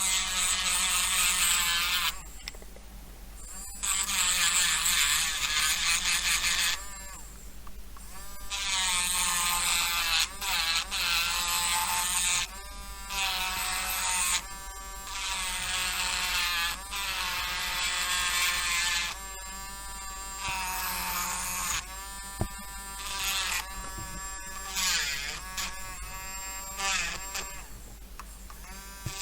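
Small electric mini drill running in repeated bursts of a few seconds, its pitch sagging as the bit bites, drilling plastic out of a model kit part.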